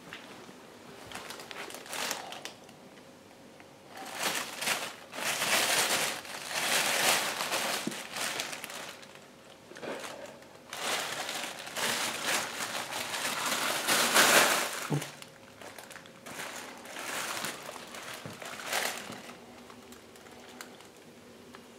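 Thin plastic shopping bag crinkling and rustling in irregular bursts as a cat wriggles and rolls inside it.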